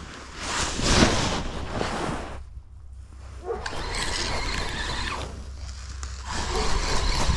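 Rustling handling of the rod, then a spinning reel cranked in two spells of whirring as a hooked fish is reeled in.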